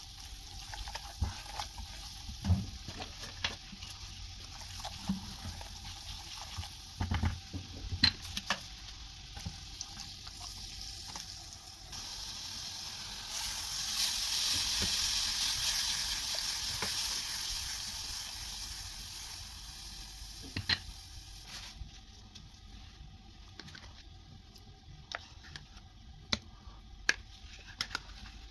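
Kitchen cooking sounds: utensils clinking and knocking against cookware, with a steady hiss of frying or running water that swells about halfway through and dies away some ten seconds later.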